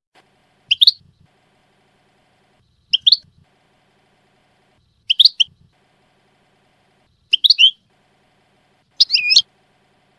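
European goldfinch calling: five short, high chirped phrases about two seconds apart, each sweeping upward, the last one longer than the rest.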